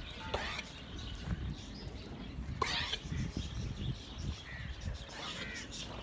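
Outdoor farmyard ambience: a steady low rumble with a few short calls, the loudest about two and a half seconds in.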